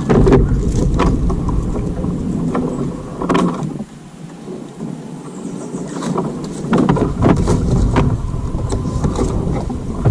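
Wind rumbling on the microphone aboard a fishing kayak, easing off for a couple of seconds about four seconds in, with scattered knocks and bumps.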